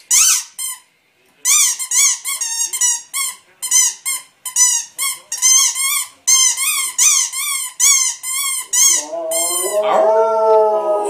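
A rubber squeak toy squeezed over and over, short high squeaks about two a second, then near the end a dog breaks into a long howl that slowly falls in pitch.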